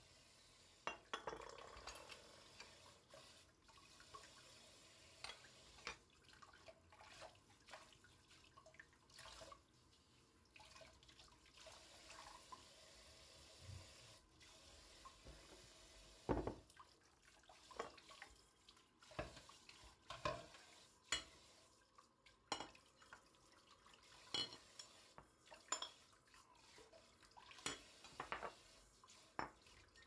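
Dishes being washed by hand under a running kitchen tap: a faint steady trickle of water with scattered clinks and knocks of plates, glasses and cutlery being handled, one sharper knock about halfway through.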